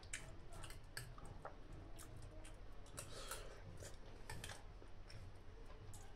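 Faint eating sounds: a person chewing a mouthful of sabudana kheer, with scattered light clicks of a spoon.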